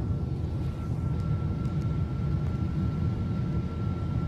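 Steady low roar of engines and rushing air heard inside a Boeing 777-200's cabin, with a thin steady high tone over it; the right engine has failed and its cowling has torn away.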